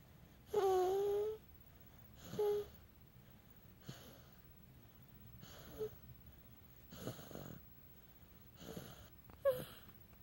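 A baby making a drawn-out, pitched singing coo, then a short coo, then snoring breaths about every second and a half, with a brief squeak near the end.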